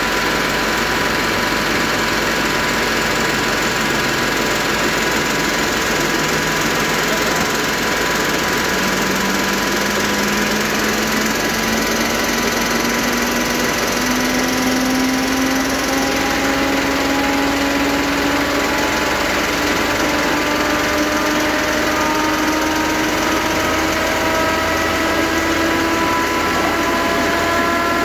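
Industrial thickness planer running and planing a wooden board, a loud, steady machine noise. A hum within it rises slowly in pitch through the second half.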